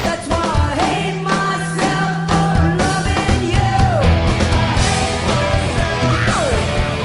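Rock music playing with a steady beat.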